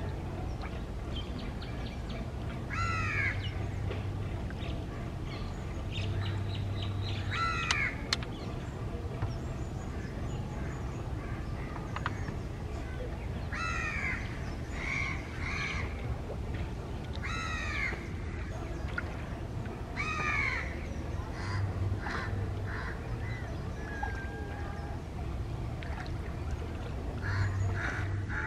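Crows cawing, a single harsh caw every few seconds, over a steady low hum.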